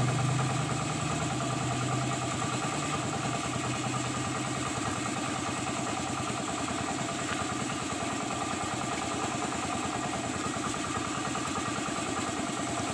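A small engine running steadily at idle, with a fast, even pulse; a low hum in it fades out about four seconds in.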